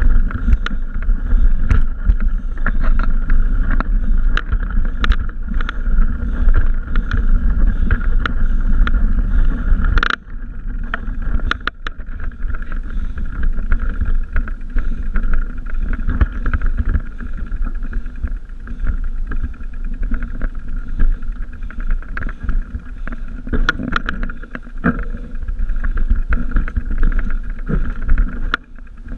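Riding noise from a mountain bike recorded on a GoPro Hero's microphone: constant low wind rumble with frequent small clicks and rattles as the bike rolls over the trail. The noise eases briefly about ten seconds in.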